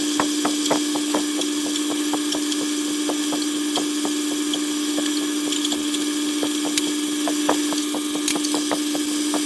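Metal lathe drilling through a brass bar with a letter-U twist drill, played back at ten times speed: a steady hum under a fast, irregular run of clicks and scraping from the cutting.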